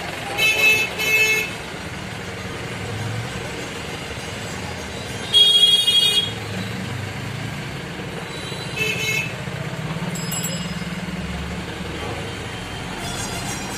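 Vehicle horns honking in slow, crowded street traffic, heard from inside a moving car: two quick beeps right at the start, a longer, louder honk about five seconds in, and a short beep about nine seconds in, over the steady low hum of the engine and road noise.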